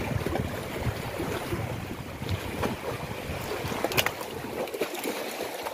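Wind buffeting an outdoor microphone, an uneven low rumble that eases off about four and a half seconds in, with one sharp click about four seconds in.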